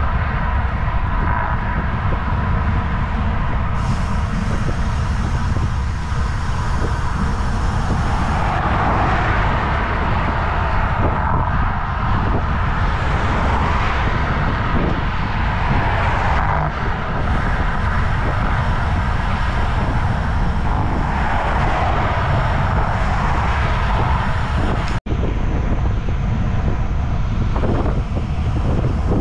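Continuous wind rush on the microphone of a camera moving with a cyclist along a highway, with the tyre and engine noise of passing cars swelling and fading several times. A momentary break in the sound near the end.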